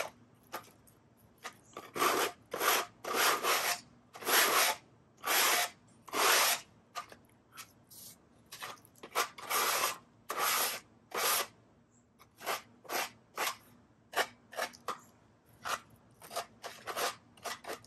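A sheet of sandpaper rubbed by hand along the edges and corners of an unfinished wood panel, smoothing the rough cut edges: a run of scratchy strokes, longer ones about one a second at first, then shorter, quicker ones in the second half.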